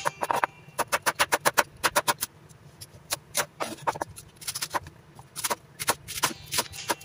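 Chef's knife slicing onion and cabbage on a wooden cutting board: quick runs of sharp chops, about five a second, with short pauses between runs.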